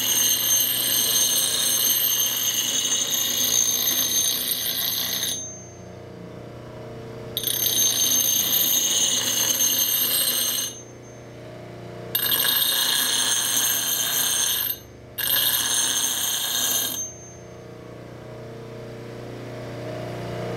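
Bench grinder with a 100-grit aluminum oxide wheel running, with a steady motor hum. The steel bevel of an adze is pressed to the wheel four times, each a loud, high-pitched grinding hiss lasting two to five seconds, as the bevel is ground right up to the cutting edge. Over the last few seconds only the motor's hum remains.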